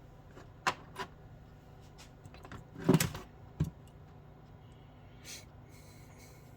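Small metal carburetor parts and screws being handled and fitted on a bench: a few separate light clicks and knocks, the loudest clatter about three seconds in.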